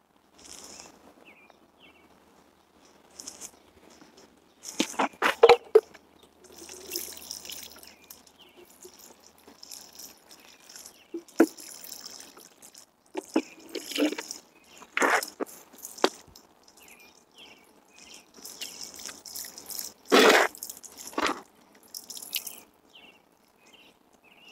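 Water sprinkling from a plastic watering can's rose head onto potted plants and soil, in several separate pours with a few sharp, louder strokes among them.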